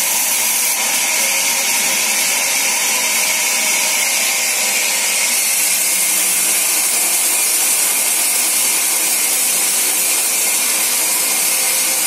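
Large vertical band saw in a sawmill running and ripping lengthwise through a log: a steady, loud hiss of the blade in the wood with a faint whine under it.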